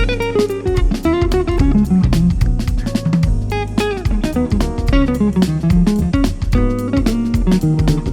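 Live band instrumental: a lead guitar playing quick runs of notes that repeatedly fall in pitch, over bass guitar and a drum kit keeping a steady beat.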